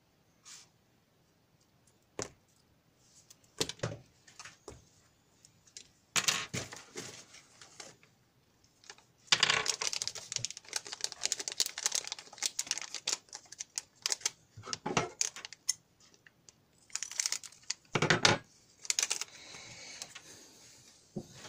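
Handling noise on an electronics workbench: irregular clicks, light rattles and rustling as wires, alligator clips and small parts are moved about, coming in bursts that are busiest in the middle.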